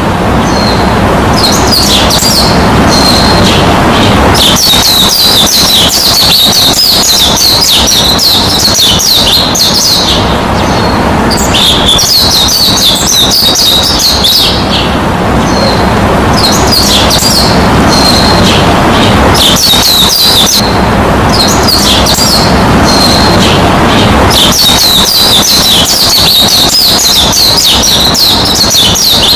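Many small birds chirping and twittering in quick, dense spells a few seconds long with short lulls between, over a steady hiss.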